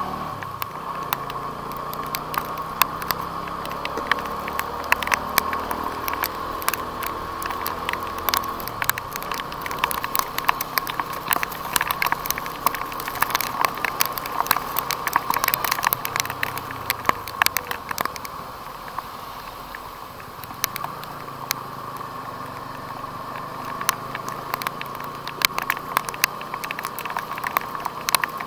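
Single-cylinder engine of a TVS Apache RTR 200 4V motorcycle running under way, its pitch rising and falling with the throttle, with a constant patter of sharp ticks from raindrops hitting the camera.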